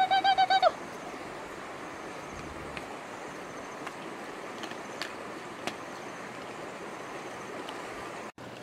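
Dogs eating from baskets: faint scattered clicks of chewing over a steady outdoor background. It opens with a short pulsed, high-pitched call that stops within the first second.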